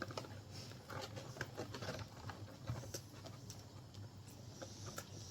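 Faint eating sounds: chewing chicken nuggets, with scattered small clicks and taps, over a low steady hum.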